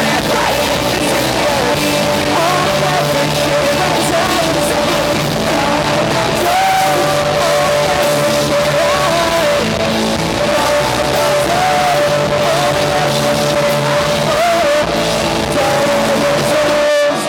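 Pop-punk rock band playing live, loud and dense, with distorted guitars, drums and a singer's vocals over a long held guitar note. The sound breaks off briefly near the end.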